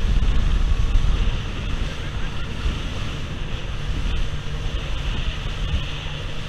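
Wind buffeting the microphone and spray rushing off the hull of a boat running fast through choppy sea. The noise is loudest in the first second or so, and a faint steady low hum comes in about five seconds in.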